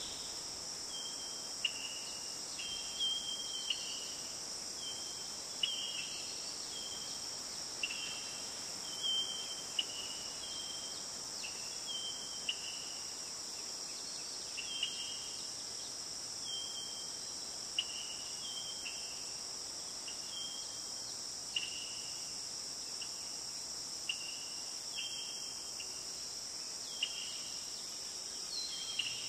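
Crickets trilling steadily in a high, even drone, with short high chirps at irregular intervals about once a second.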